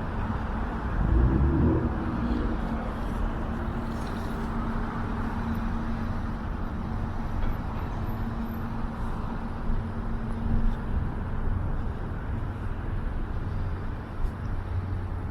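City street traffic: cars passing steadily, one louder vehicle rumbling past about a second in, and a steady engine hum that fades out around eleven seconds.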